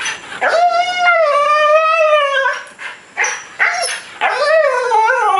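Siberian husky vocalizing to get attention, in the gargling, talking way huskies have. First comes one long wavering howl-like call of about two seconds, then two short yelps, then another wavering call near the end.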